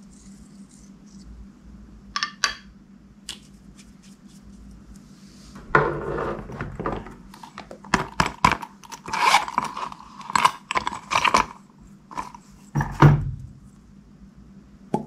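Slime being worked and mixed by hand: irregular sticky clicks, pops and squelches, a few at first, then a dense run through the middle and a loud burst near the end.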